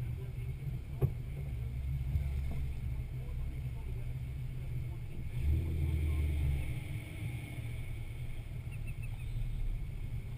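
Jeep engine running at low speed with a steady low rumble, picked up close by a camera mounted on the vehicle. The engine note swells briefly about five and a half seconds in, and there is one sharp click about a second in.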